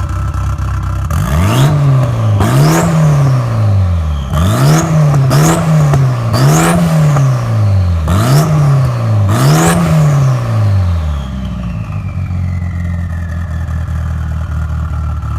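Built 2.4-litre four-cylinder turbocharged engine of a Mitsubishi Lancer Evo VIII, idling and then blipped about seven times in quick succession, the revs rising and falling with each blip and a high turbo whistle rising over each one. After the last blip the engine drops back to idle while the turbo whistle falls slowly in pitch as it spools down.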